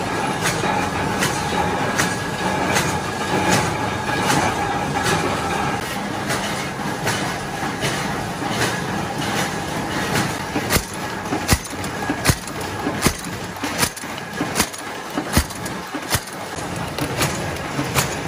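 Bolt-making machine running: a steady mechanical clatter with a regular knock about every three-quarters of a second. The knocks stand out more sharply in the second half.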